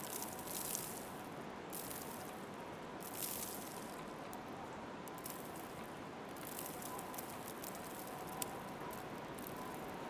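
Footsteps crunching in snow, a few irregular steps over a steady hiss of outdoor ambience.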